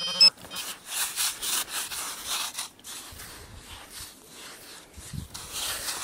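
A handheld metal-detecting pinpointer gives a short, loud buzzing tone over a hole in beach sand as it locates a target. Then come a series of rough scrapes as the dry sand is dug and pushed aside.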